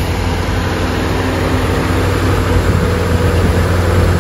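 Diesel engine of a Scania heavy-haul truck running steadily, a deep even drone.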